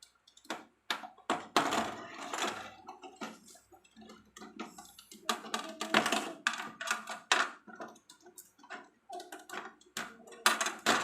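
Irregular plastic clicks and clattering from handling a toy mini billiard table and its small balls, coming in clusters with short gaps.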